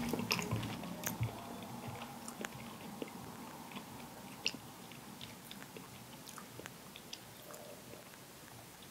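Someone eating ice cream close to the microphone: quiet chewing and mouth sounds with small scattered clicks, one a little louder about halfway through.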